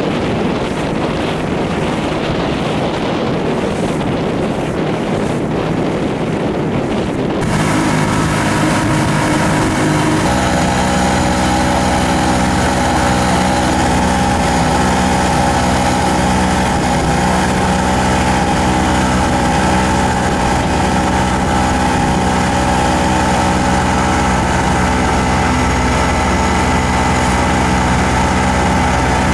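Wind and water noise, then about a quarter of the way in a motorboat engine comes in, running steadily and filling in a little more a few seconds later.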